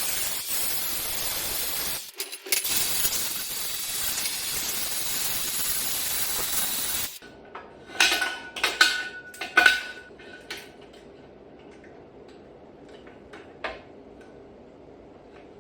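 A power tool working metal runs with a steady hiss, breaks off briefly about two seconds in, and stops about seven seconds in. Then several metal clanks ring out over the next few seconds, with one more near the end.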